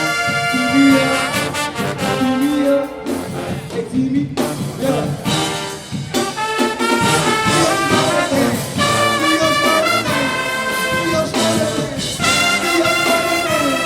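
HBCU-style marching band playing a brass-heavy tune: trombones and trumpets in held and punchy chords over drums, with short breaks between phrases.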